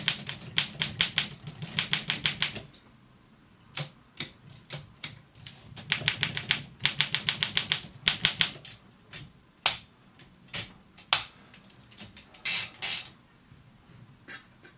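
Olympia SM7 manual typewriter being typed on: two quick runs of even keystroke clacks, with a few single clicks between and after.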